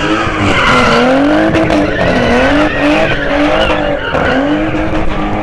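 A car's engine revving hard, its pitch rising and falling repeatedly as it slides sideways around slalom cones, with tyres squealing and skidding on the asphalt.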